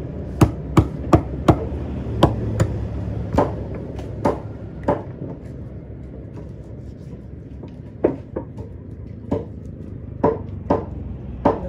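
Heavy cleaver-like knife chopping through a tuna on a wooden chopping block: four sharp chops in quick succession at the start, then more spread out, a pause of about three seconds midway, and several more near the end. A steady low hum sits underneath.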